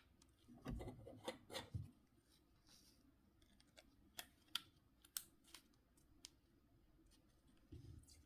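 Faint handling noises from a Nokia C5-00 mobile phone and small tools being worked on: a short run of light knocks and rubbing, then several sharp, separate little clicks, and a soft low thump near the end.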